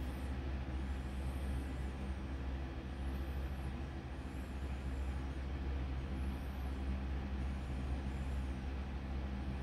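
Steady low machine hum with a few faint steady tones above it, unchanging throughout.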